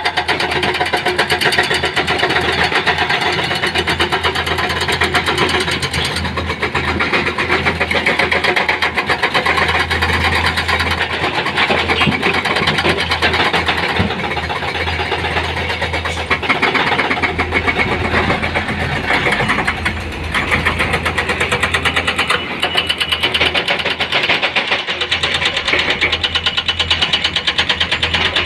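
An engine running steadily with a fast, even rattle and a low hum underneath, dipping and picking up again at times as it works.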